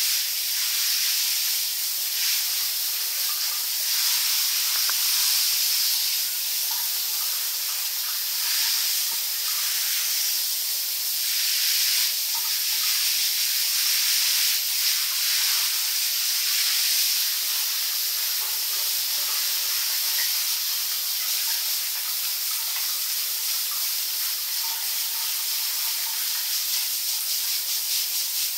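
Shower spray from a hand-held hose head running steadily over an alligator and the tiled floor of a bath: a continuous hiss of water that swells and eases slightly.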